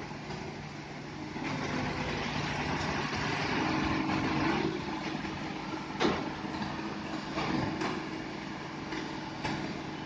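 Hino Ranger concrete mixer truck running while it unloads concrete down its chute, its diesel engine a steady low hum under the turning drum. A louder rushing noise swells from about a second and a half in until about five seconds in, and a sharp knock sounds about six seconds in.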